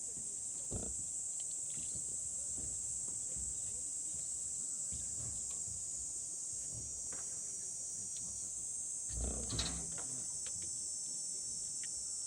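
A steady, high-pitched drone of insects, a cricket-like chorus, with a few low knocks of handling noise about a second in and a louder cluster around nine to ten seconds in.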